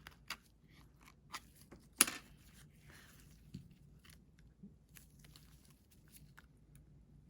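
Small clicks and taps of tools and phone parts being handled on a work surface during an iPhone 7 teardown, with one sharper click about two seconds in.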